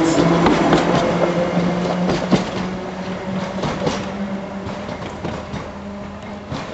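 1938 Tube stock electric train passing and pulling away along the track, with wheels clicking and knocking over the rails and a steady hum, fading as it recedes.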